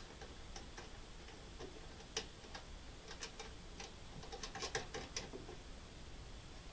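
Faint, irregular small clicks and taps of a ring-terminal earth lead being fitted by hand onto the grounding terminal of a power inverter's casing. The clicks come in loose clusters, thickest a little past halfway.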